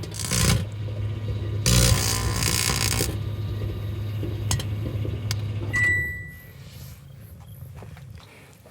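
Microwave oven running with a steady hum, broken by loud bursts of crackling noise and a few clicks from the tinfoil-wrapped plush arcing and burning inside. About six seconds in it beeps once and the hum stops.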